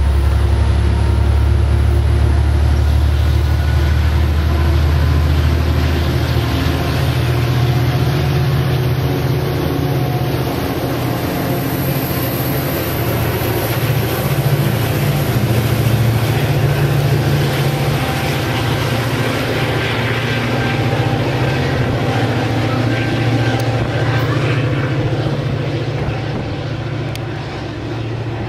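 A Metrolink push-pull commuter train with a Coaster F40PHM2-C diesel locomotive trailing rolls past and pulls away: a loud, steady diesel drone with wheel and rail noise, fading over the last few seconds as the train recedes.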